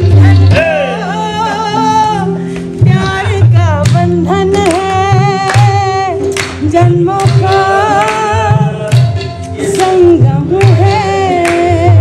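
A song playing: a singer's voice carrying long, wavering, ornamented notes over a repeating bass line.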